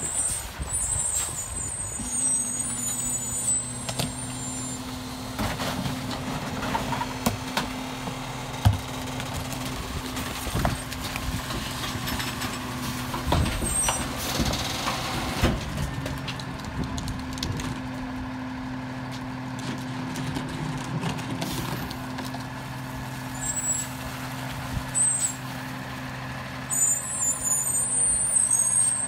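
Freightliner M2106 garbage truck's diesel engine held at a steady raised speed, driving the hydraulics of the Heil Durapack 5000 rear loader as the packer runs its cycle on a hopper of recycling. Short hisses of air near the start and again near the end.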